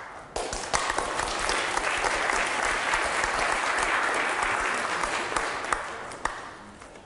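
Audience applauding a speaker at the close of a talk: a dense patter of many hands clapping that starts just after the beginning and dies away over the last couple of seconds.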